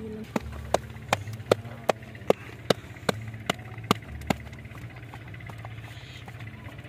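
Dough being slapped flat between the palms for a large roti, about eleven sharp, evenly spaced slaps that stop after some four seconds, over a steady low hum.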